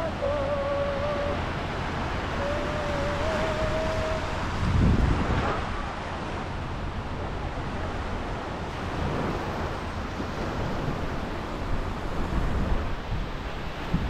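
Small sea waves breaking and washing up the sand, with wind buffeting the microphone, hardest about five seconds in and near the end.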